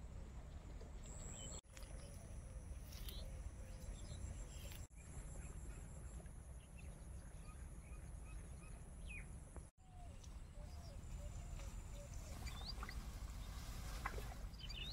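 Faint rural field ambience: a steady low rumble, a thin steady high-pitched insect drone, and scattered faint bird chirps. The sound breaks off for an instant three times, about 1.5, 5 and 10 seconds in.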